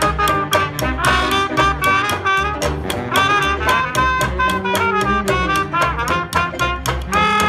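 Live traditional jazz street band playing a swing tune. Saxophone and two trumpets play the melody over plucked upright bass and strummed banjo keeping a steady beat of about four strokes a second.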